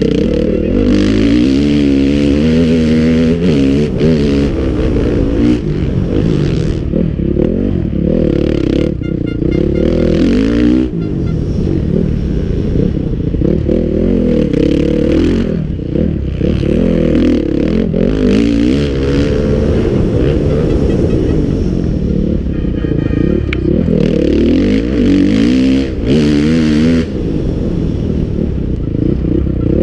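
Onboard sound of a motocross bike's engine at race pace, its pitch repeatedly climbing and falling as the rider works the throttle and shifts through the gears around the track.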